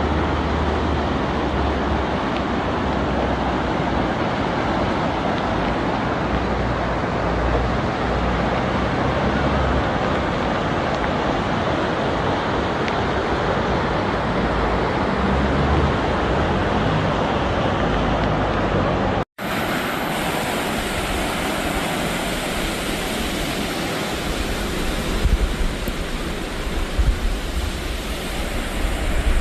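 Floodwater rushing, a steady loud rush of water. It breaks off for an instant about two-thirds of the way through and carries on, with wind buffeting the microphone in uneven gusts near the end.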